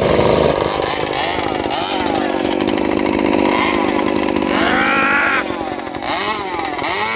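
Old two-stroke chainsaw running after being started, its engine revved up and down again and again.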